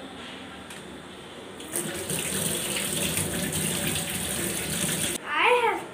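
Kitchen tap running onto vegetables being rinsed in a stainless steel sink, the flow coming on fuller about two seconds in and cutting off suddenly near the end. A short burst of singing follows it.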